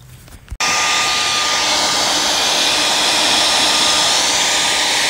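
Handheld hair dryer switched on with a click about half a second in, then blowing steadily with a thin, even whine, used to heat a vinyl window decal on a car's glass.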